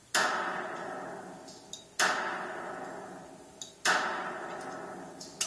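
Three shots from a Colt 1911 .45 semi-automatic pistol, fired at an even pace about two seconds apart, each with a long echoing tail. They are heard through a TV's speaker.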